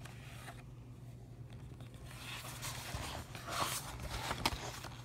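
Paper pages of a picture book being turned and handled: rustling and scraping with a few light clicks, starting about two seconds in over a faint low hum.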